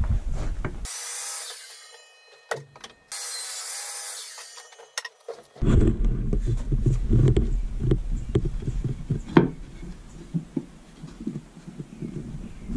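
Wooden boards being handled on a workbench: irregular knocks, clicks and rubbing, which start about five and a half seconds in. Before that comes a few seconds of hiss with a faint whine.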